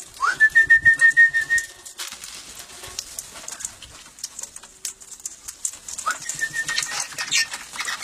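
Parrots calling: a loud whistled call that rises, then holds a fast trill for about a second and a half, and a shorter one about six seconds in, with high chirps and light clicks between.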